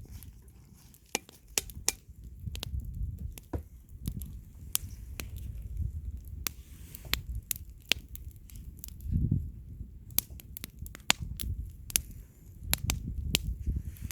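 Campfire crackling: irregular sharp pops and snaps over a low rumble.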